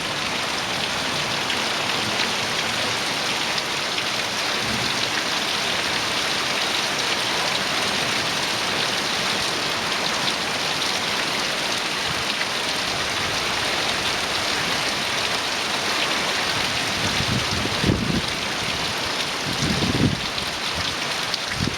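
Heavy rain pouring steadily, described as raining like crazy. Near the end, two brief low sounds rise over it.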